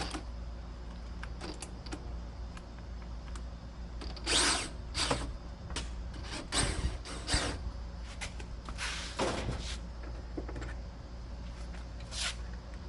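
Tool work on a truck door handle: scattered clicks and short scraping, rattling bursts, several close together about four to seven and a half seconds in, over a steady low hum.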